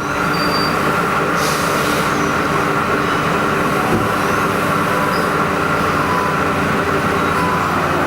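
Haas EC-400PP CNC horizontal mill running under power: a steady mechanical hum with a whine over it, and a short hiss about a second and a half in.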